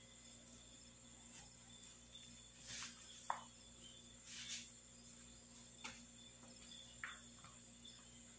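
Faint, soft handling sounds as cinnamon-sugar bread dough is rolled and pressed into a log by hand on a plastic tablecloth: two brief rubbing swishes and a few light taps, over a faint steady high-pitched tone.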